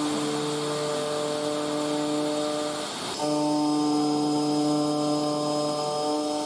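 DIY CNC router's spindle and end mill cutting an aluminium plate on an adaptive profiling toolpath: a steady pitched cutting tone over a vacuum cleaner's rushing noise. The tone drops out briefly about three seconds in and again near the end, where the cutter sweeps back between cutting strokes.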